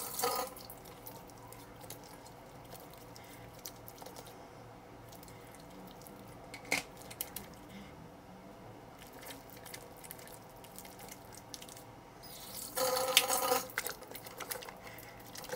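Quiet wet sounds of a face being lathered with a bar of soap, with water dripping into a sink and a single click about seven seconds in. Near the end comes a louder burst of water splashing as the face is rinsed.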